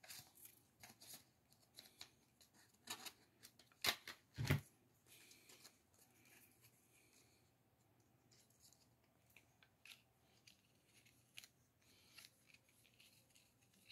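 Mostly near silence, broken by scattered light clicks and rustles of things being handled. A few louder knocks come about three seconds in and twice more around four seconds.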